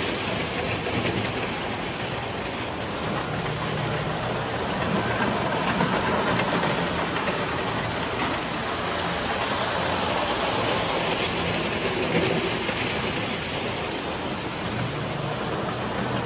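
Electric tinplate toy train running on metal track: a steady rumble and rattle of its wheels and motor.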